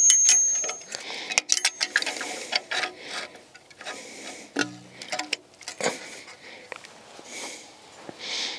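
Irregular metallic clicks and ticks of hand tools working the hold-down pin and clip of a parking brake shoe against the steel backing plate, with a brief high metallic ring at the start.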